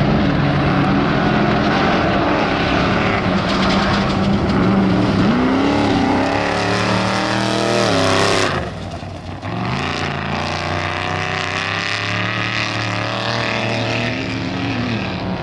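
Off-road race vehicles' engines running hard, the pitch rising and falling with the throttle as they drop into and drive through a wash. A little past halfway the engine sound cuts away abruptly, then another engine comes in and climbs through the revs.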